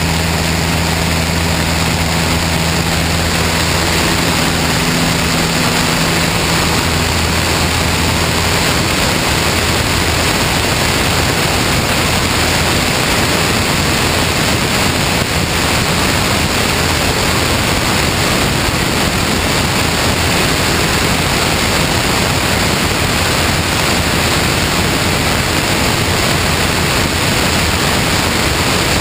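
Cessna 162 Skycatcher's engine running at steady power on the takeoff roll, its drone soon buried under loud rushing wind on the wing-mounted camera's microphone as the plane gathers speed, lifts off and climbs.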